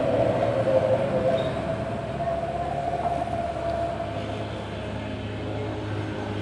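A vehicle engine running with a steady drone over a low hum. The drone fades about four seconds in.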